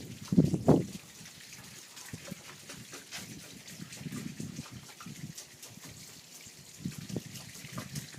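Snowmelt trickling and dripping down a rain chain: a steady light run of water with many small drips. A brief louder patch of low splashy sounds in the first second.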